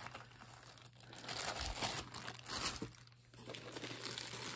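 Clear plastic bag crinkling and rustling as it is handled, in irregular rustles that are busiest in the middle.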